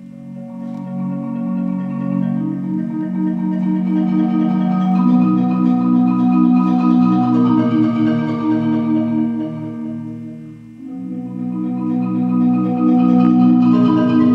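Yamaha concert marimba played solo with mallets: low-register chords in fast repeated strokes, growing louder over the first few seconds, dropping away briefly about ten and a half seconds in, then coming back loud.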